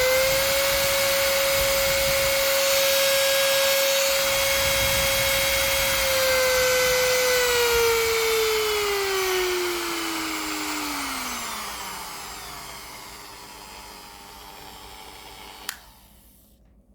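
Corded rotary tool running at full speed with a steady high whine, then winding down after about seven seconds, its pitch falling smoothly as the motor coasts to a stop and fades. A single sharp click near the end.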